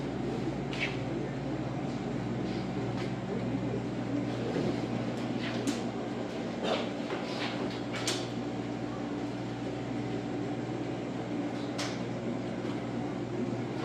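Steady low hum of running equipment, with a few light clicks and knocks scattered through it.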